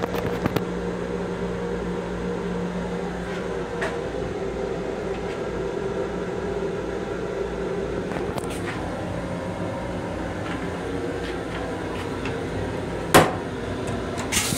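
Steady running hum of a Long Island Rail Road M7 railcar, heard inside its small restroom, with a few light clicks and one sharp, loud clack about 13 seconds in.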